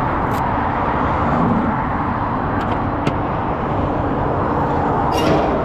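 Steady motor-vehicle noise: an engine running under a constant rush of road or traffic noise, with a few brief clicks.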